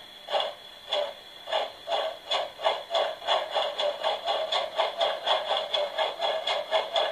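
Massoth sound decoder in an LGB 2075 garden-railway steam locomotive playing steam chuffs through the model's loudspeaker. The beats speed up from under two a second to about three a second as the engine gathers pace.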